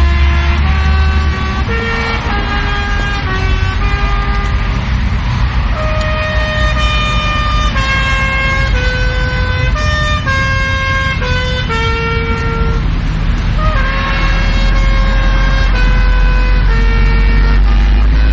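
A solo brass instrument playing a slow melody of held notes, each lasting under a second, over a steady low rumble.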